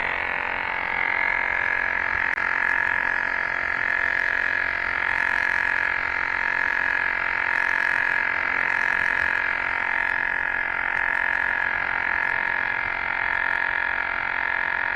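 Electric tire pump running steadily while inflating an e-bike tire: an even motor drone with a constant pitch.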